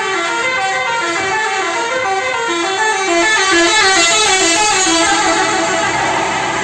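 A Basuri telolet bus horn, a multi-trumpet air horn, plays a loud, quick tune of short notes that step up and down in pitch.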